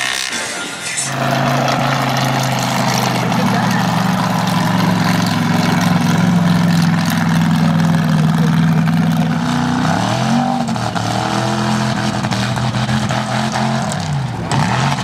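Mega mud truck's engine held at a steady high rev, then its pitch dips and climbs back up several times from about two-thirds of the way in as the throttle is worked along the track.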